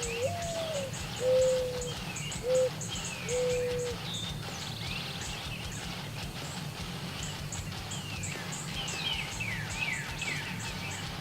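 Mourning dove cooing its song in the first few seconds: one rising-and-falling note, then three steady lower notes. Small songbirds chirp throughout over a dense high insect-like ticking.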